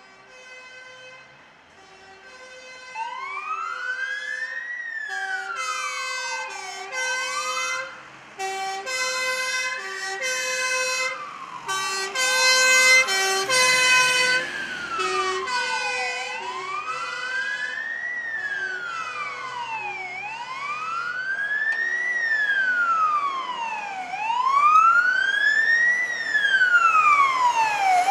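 Fire engine sirens: a two-note hi-lo horn alternating steadily, joined about three seconds in by a wailing siren rising and falling about every four seconds. They grow louder as the trucks pass, loudest around twelve seconds in and again near the end.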